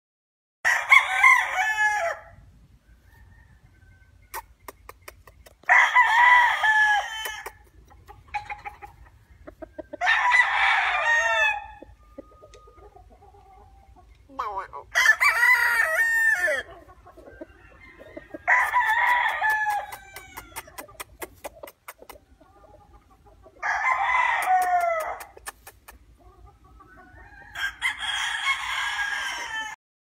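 Gamefowl roosters crowing, seven crows in turn, one about every four to five seconds.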